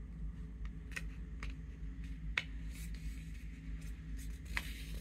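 A sheet of paper being folded and creased by hand against a hard board: a handful of short, crisp paper crackles and taps, the sharpest about halfway through, over a steady low hum.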